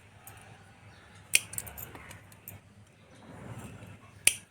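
Kitchen utensils knocking: two sharp clinks, about a second in and again near the end, with a few softer taps between them.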